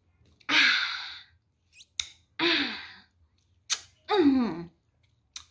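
A woman's breathy, sighing voice sounds, three of them, each falling in pitch, with short kiss smacks in between as she kisses a cat.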